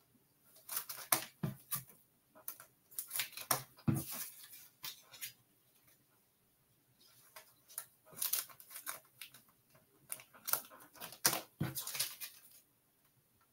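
Irregular clicking and rustling in clusters, with a lull in the middle, stopping shortly before the end.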